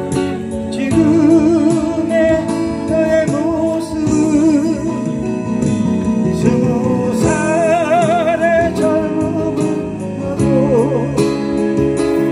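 A man singing a ballad into a microphone over amplified music, accompanying himself on acoustic guitar, with long notes held with vibrato.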